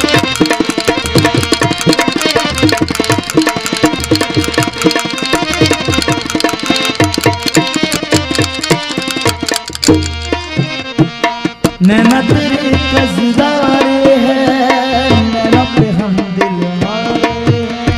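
Instrumental passage of a Rajasthani folk ghazal: fast tabla strokes under a sustained melody. The drumming thins out briefly about ten seconds in, then a gliding melodic line comes in over it.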